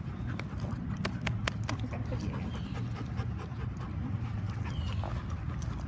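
Dogs panting close by, with scattered light clicks.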